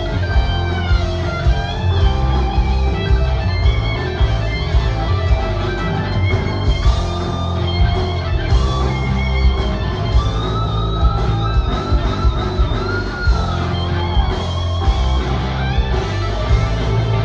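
Live rock band playing: an electric guitar lead line with bending, sliding notes over bass and drums with a steady beat.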